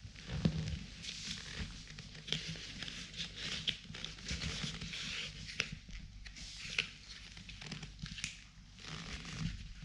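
Leather-gloved hand rubbing along the shafts of black leather cowboy riding boots: a scratchy leather-on-leather rustle and crinkle that comes in repeated swells, with a few small clicks.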